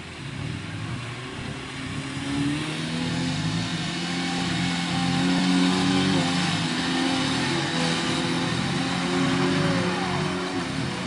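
An off-road 4x4 truck's engine revving hard under load. It grows louder over the first few seconds, its pitch shifts up and down with the throttle, and it drops briefly near the end.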